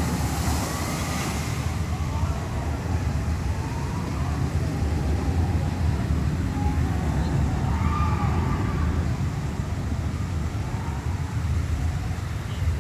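Hiss of a dive coaster's splashdown spray falling back onto the pool, fading out after about two seconds, over a steady low rumble.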